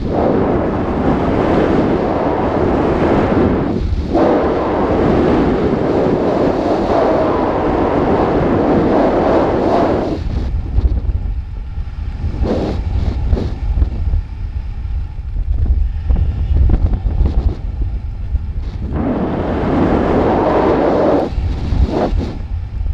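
Wind buffeting the microphone of a camera hung beneath an ascending weather balloon: a loud rushing that about ten seconds in drops to a low rumble broken by scattered sharp thumps, then rises to a rush again near the end.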